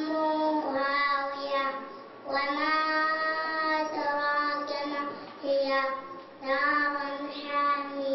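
A boy reciting the Quran in a melodic chant. He holds long notes with ornamental bends, in four phrases with short breaths between them.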